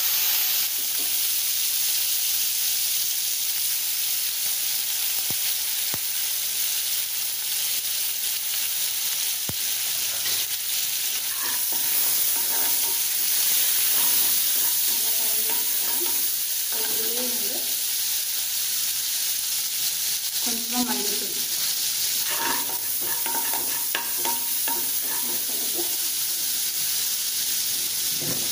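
Lemon-rice tempering of mustard seeds, dals, curry leaves and green chillies sizzling steadily in hot oil in a kadai with lemon juice just squeezed in. A metal slotted spoon stirs and scrapes the pan now and then, mostly in the middle and later part.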